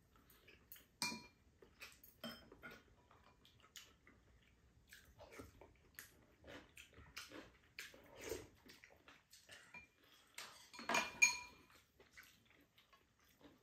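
Chopsticks and spoons clicking and clinking against ceramic bowls and a pan while people eat, in scattered light taps, some with a short ring. A busier, louder cluster of clinks comes about eleven seconds in.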